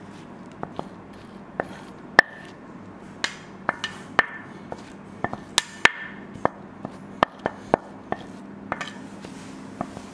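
A spoon clinking and tapping against a dish as filling is spooned into the quiche crust: irregular sharp taps, some with a brief ring, over a faint steady hum.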